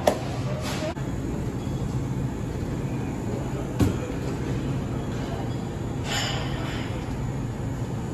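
Shop interior room tone: a steady low hum under faint background voices, with a sharp click just after the start and another about four seconds in, and a brief hissing rustle about six seconds in.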